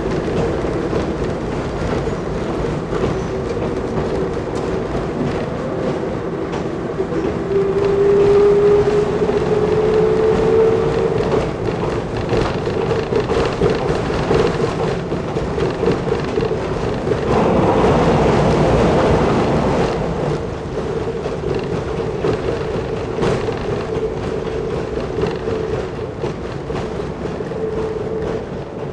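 Kiha 10 rail bus running along the line: the steady drone of its diesel engine and transmission with the clicking of rail joints. The engine note climbs for a few seconds about a third of the way in, and a louder rushing noise swells for about two seconds past the middle.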